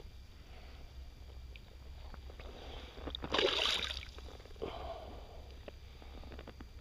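Water splashing as a hooked black bass is played on a fly rod: one loud splash a little over three seconds in and a smaller one about a second later, over a steady low rumble.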